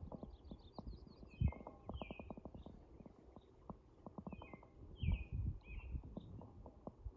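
Songbirds singing: a quick high trill, then slurred whistled phrases twice. Underneath are low rumbling thumps and clicks, the loudest two about a second and a half in and about five seconds in.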